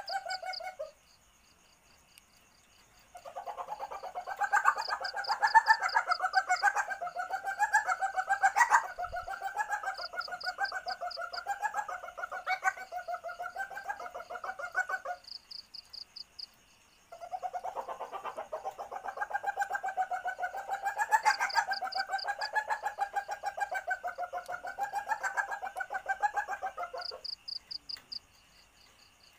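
Female common palm civet (Paradoxurus hermaphroditus) in heat giving its mating call: a call ends about a second in, then two long, rapidly pulsing, wavering calls of about ten to twelve seconds each follow with a short pause between. Faint high-pitched chirping comes in short bursts every few seconds.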